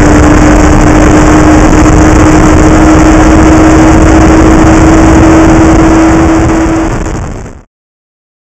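Radical SR3 RS race car engine running at steady revs, one constant note under heavy wind and road rush on the onboard camera. It fades out near the end.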